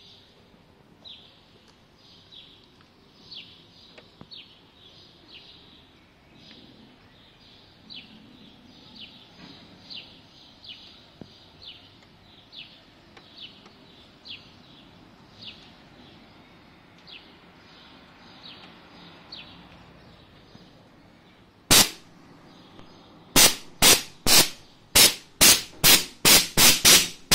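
Compressed air from a blow gun on a Stanley air compressor, let off in short sharp blasts: one about 22 seconds in, then about ten in quick succession near the end. Before the blasts, faint high chirps repeat about once a second.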